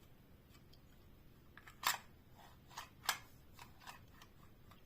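A few sharp plastic clicks as a small plastic action figure's moving parts are worked by hand. The two loudest come about two and three seconds in, with fainter ones between.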